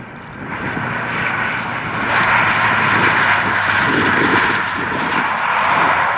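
Airliner's engines running at close range, a noisy rush that swells over the first two seconds and then holds steady and loud.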